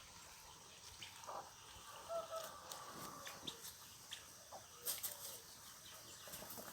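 Chickens clucking faintly, short calls among scattered small clicks.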